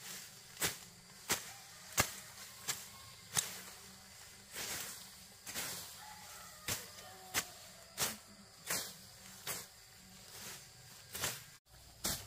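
Machete slashing through grass and undergrowth, a sharp swish-and-chop about every two-thirds of a second, with a couple of softer, longer swishes in the middle.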